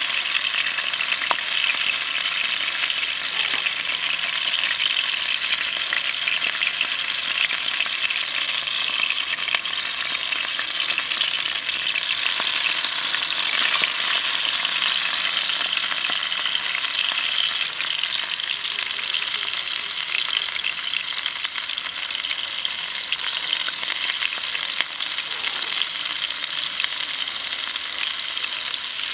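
Beef steak frying in hot fat in a square frying pan, a steady sizzle with many small pops and spits; vegetables laid into the pan beside it sizzle along with it.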